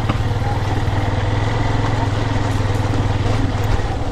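Yamaha FZS V2 motorcycle's single-cylinder engine running steadily at low revs, its firing pulses even, as the bike rides slowly over a rough dirt road.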